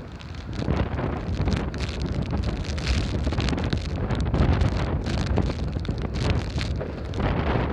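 Gusty storm wind buffeting the microphone: a low, rushing rumble that swells and drops with each gust.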